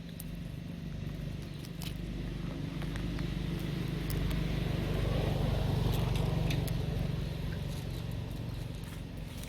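A motor vehicle passing by: a low engine hum and road noise that build to their loudest about six seconds in, then fade away, with a few light clicks over it.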